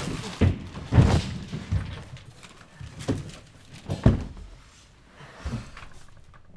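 A run of dull thuds and knocks, about half a dozen spread over the few seconds, each short and separate, the strongest about a second in and again about four seconds in.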